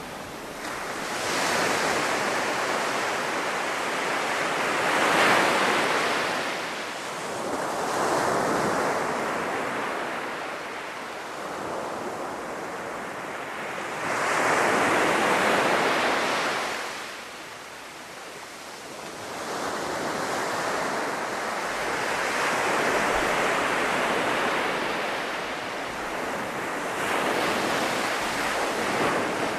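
Sea surf breaking on a sandy beach, the wash of the waves swelling and fading every few seconds, with some wind.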